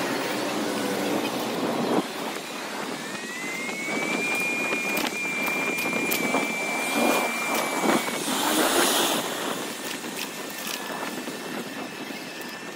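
Rushing wind and city traffic noise picked up on a moving bicycle. A high, steady whine rises slightly and then holds for about five seconds in the middle, and a few sharp clicks are scattered through.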